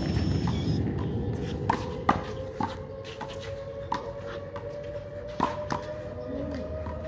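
A handful of irregular sharp slaps of a small rubber handball against the concrete court and wall, the loudest about two seconds in, over a faint steady hum that rises slowly in pitch.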